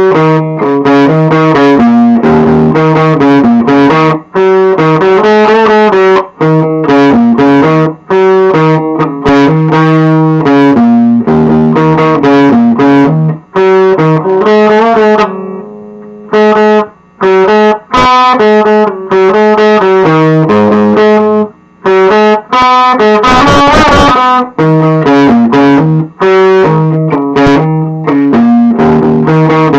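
Electric guitar played through an amplifier speaker, a run of chords and single-note riffs. Around the middle one chord is left to ring and fade, and a little later there is a brief scratchy strum.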